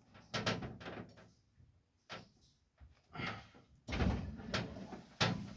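A series of knocks and thumps, a door opening and closing among them, the loudest about four seconds in.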